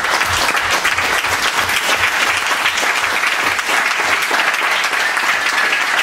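Audience applauding, a dense steady crackle of many hands clapping.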